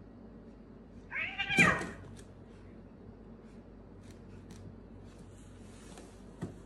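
A cat gives one short, loud yowl, about a second long, starting about a second in while two cats scuffle. A few faint taps follow.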